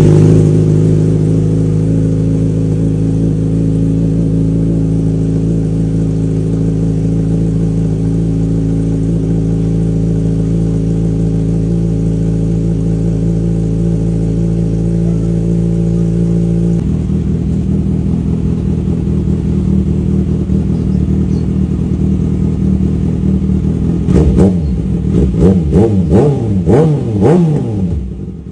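Kawasaki ZX-6R inline-four motorcycle engine just after a cold start, running at a steady high idle that drops abruptly to a lower idle speed about two-thirds of the way in. Near the end the throttle is blipped several times in quick succession, the revs rising and falling with each blip.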